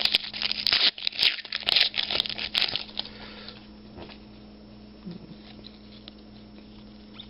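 A Panini Prizm basketball card pack's wrapper being torn open and crinkled: a quick run of crackles and rips for about three seconds, then it goes quiet apart from a faint steady hum.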